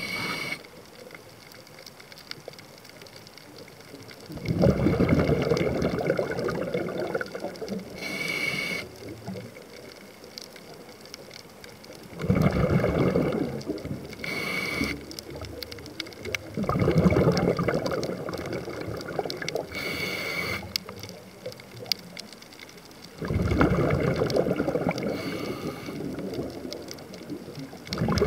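Scuba diver breathing through a regulator underwater: a short, high hissing inhale, then a rush of exhaled bubbles lasting a few seconds, the cycle repeating every six seconds or so.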